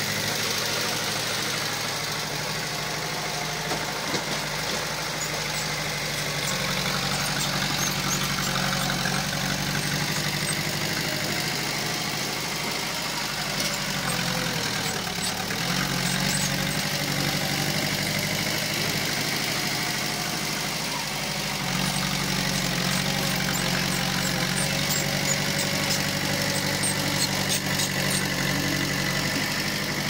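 Diesel engine of heavy earthmoving equipment running steadily. About halfway through its note sags and recovers, and it picks up again a few seconds later, as the load or throttle changes. Faint light clicking comes in near the end.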